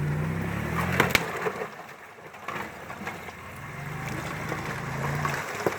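An off-road vehicle's engine pulling hard twice, with sharp cracks about a second in and near the end as the vehicle breaks through ice.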